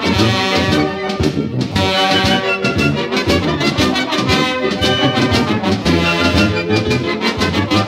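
Wind band playing a dobrado, a Brazilian march: brass and woodwinds in full sound over a steady beat.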